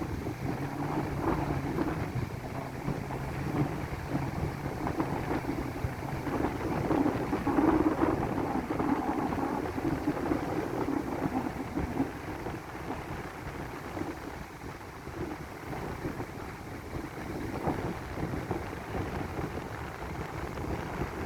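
Wind buffeting the microphone over a steady low engine hum, the hum fading about eight seconds in.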